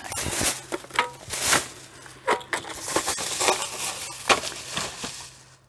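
Thin plastic shopping bag rustling and crinkling in irregular crackly bursts as items are packed back into it, dying away near the end.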